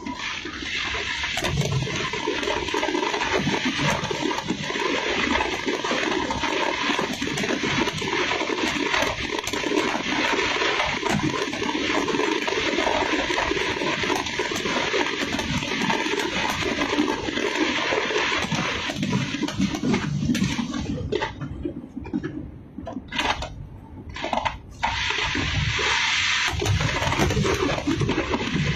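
Fireworks display: a dense, continuous crackling and fizzing from many bursting shells and a fountain, with low thuds mixed in. It thins out briefly about two-thirds of the way through, then picks up again.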